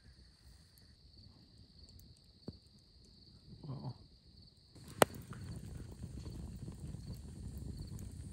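Quiet night ambience with a faint steady high-pitched trill. About five seconds in comes a sharp snap, then a wood campfire crackling and hissing steadily.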